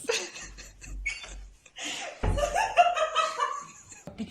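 A person laughing, loudest about two seconds in.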